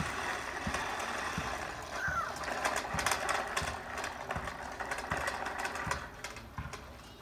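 Plastic toy push lawnmower rolling over a concrete driveway: a low clunk repeats about every 0.7 s, with a clatter of small clicks through the middle, growing fainter near the end.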